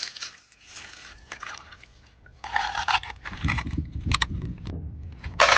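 Hands digging and scraping in wet beach mud, with crunching and squelching as mussels are pulled loose and gathered. The sounds come in irregular scrapes and crunches, busier in the second half, with a sharp burst near the end.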